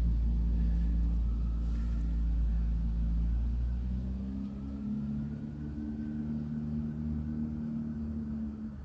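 Low, steady motor hum with a rumble beneath it, like an engine running; its pitch shifts about four seconds in and it drops away near the end.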